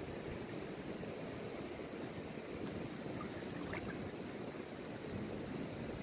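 Steady rush of shallow river water, with a few faint ticks in the middle.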